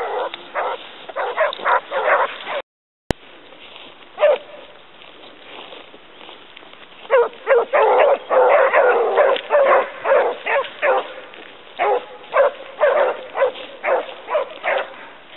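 A pack of Basset Hounds giving tongue as they hunt a hare: many short overlapping bays and barks from several dogs. They run together into full cry around the middle, then break into separate calls. The sound drops out briefly with a click about three seconds in.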